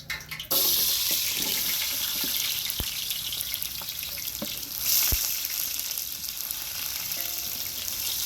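Onions going into hot cooking oil and frying with a loud sizzle. The sizzle starts suddenly about half a second in and swells again around five seconds in, with a few light knocks.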